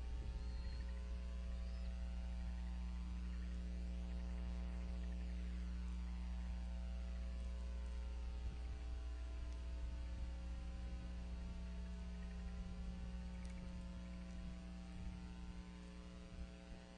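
Steady electrical hum with many even overtones over a low rumble, easing off near the end. Two faint high chirps come about a second in.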